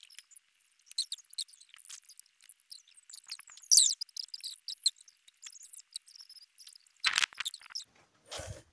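A bathing sponge is rubbed over short hair to twist it into locks, making an uneven scratchy, crackling rustle. The rustle is loudest about four seconds in. A louder scrape comes about seven seconds in, and a dull bump near the end.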